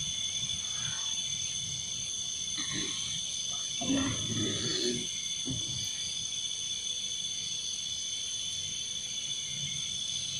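Night insects chirping steadily in several high, even tones. About four seconds in, a man's voice gives a short, low, rough vocal outburst lasting about a second and a half.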